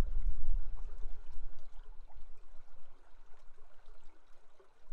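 Rushing river water: a steady hiss with a deep rumble underneath that eases after about two seconds and returns near the end.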